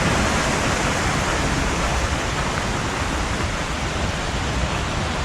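Steady rushing of a waterfall, an even roar of falling water.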